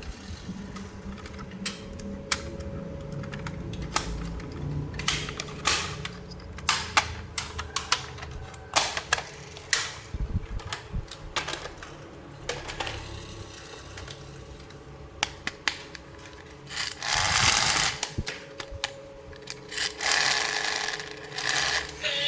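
Irregular sharp clicks and taps of hard plastic toy pieces being handled, with two longer rustling scrapes near the end.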